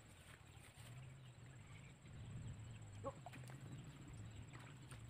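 Near silence: faint outdoor ambience with a low steady hum, and a couple of faint short calls about three seconds in.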